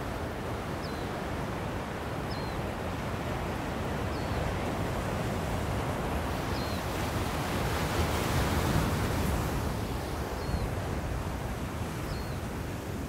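Ocean surf washing on the shore as a steady rush, swelling to a louder wave break about eight seconds in. A faint short high chirp repeats every second or two.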